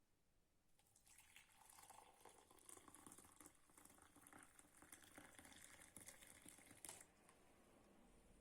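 Faint sound of liquid pouring into a container, starting about a second in and lasting around six seconds, with a short knock just before it stops.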